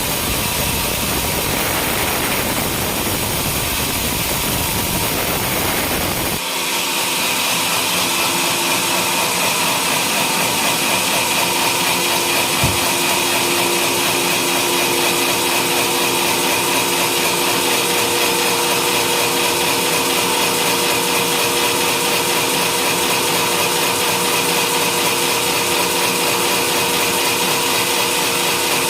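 Homemade engine-driven sawmill sawing a coconut palm log, a loud steady machine noise. About six seconds in, the sound switches abruptly to a steady whine of the saw running through the wood, with one sharp knock a few seconds later.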